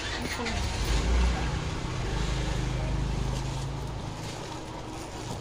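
Low rumble of a motor vehicle's engine, swelling about a second in and fading out after about four seconds.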